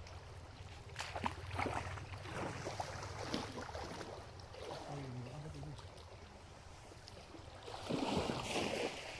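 Water splashing and sloshing in a shallow stream, with a series of short splashes early on and a louder burst of splashing near the end, over a steady low rumble of wind on the microphone.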